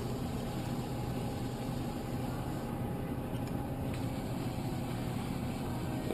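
Steady low hum with an even room noise, with no distinct clicks or knocks.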